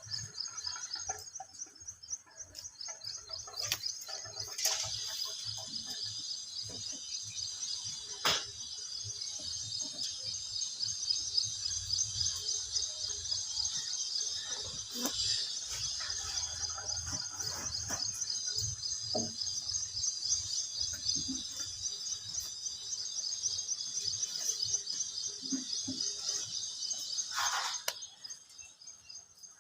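Insects trilling: a steady, high-pitched, rapidly pulsing chirr that runs on and cuts off suddenly near the end. Scattered light knocks and a short call that falls in pitch come just before it stops.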